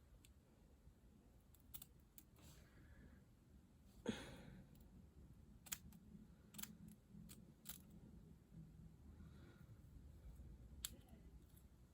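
Near silence, broken by a soft knock about four seconds in and a few faint, sharp clicks spread through the rest.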